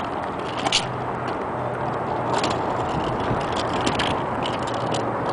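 Kick scooter's small wheels rolling over concrete, a steady rough rumble broken by a few sharp clicks.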